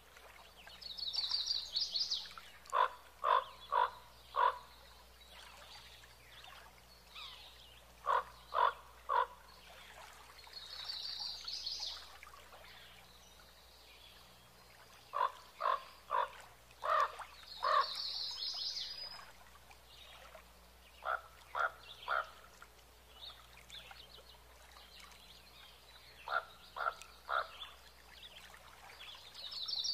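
Animal calls: groups of three to six short, evenly spaced notes every five or six seconds, with a higher, fast trill about every nine seconds.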